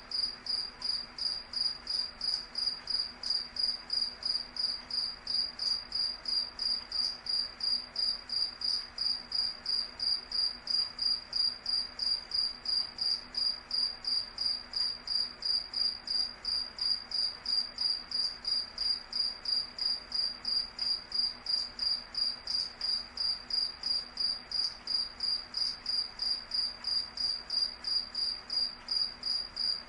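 A cricket chirping steadily: short, evenly spaced high-pitched chirps, about two to three a second, on one tone.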